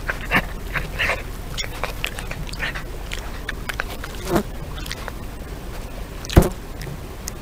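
European badger foraging close by, rustling and nosing through grass with quick crackles. Two louder knocks come through, the louder one about six seconds in as the badger comes right up to the camera.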